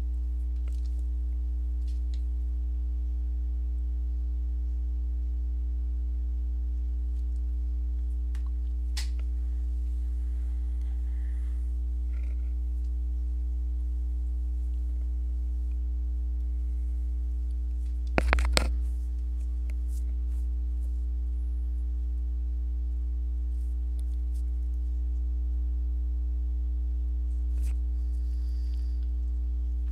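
Steady low electrical hum with a few faint higher tones over it. It is broken by a single click about nine seconds in, a quick cluster of three or four sharp clicks a little past halfway, and a faint click near the end.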